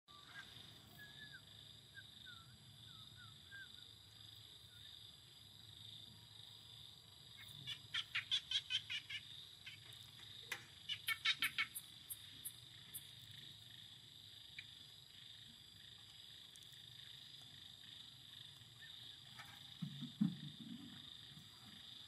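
Steady high drone of insects, with a few faint chirps in the first few seconds and two short runs of rapid pulsing calls, about six a second, around eight and eleven seconds in. A low knock sounds near the end.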